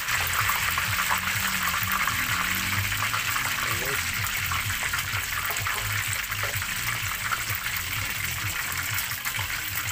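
Pork belly deep-frying in a wok of hot oil: steady sizzling, thick with small crackling pops.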